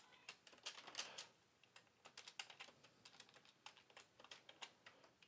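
Typing on a computer keyboard: a quick, irregular run of faint keystrokes, with a few louder ones about a second in.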